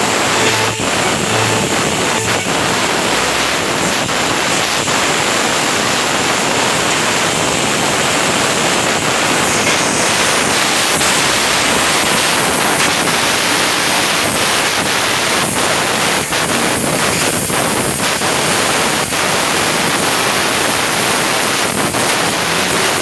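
CNC laser cutting machine cutting sheet metal: a steady, loud hiss from the cutting head, with a few faint short ticks.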